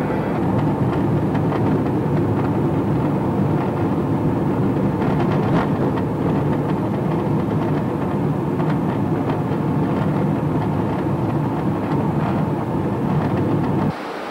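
Steady rumble of a car driving, heard from inside the cabin: engine and tyre noise with occasional light knocks. It cuts off abruptly near the end and gives way to rushing river water.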